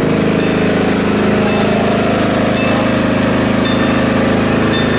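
Small engine of a miniature diesel-outline locomotive idling steadily, with a faint regular tick about once a second.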